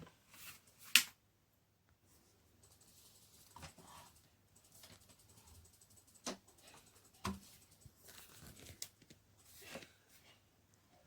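Intermittent handling sounds: rustling and tearing, with scattered clicks and knocks, the sharpest about a second in.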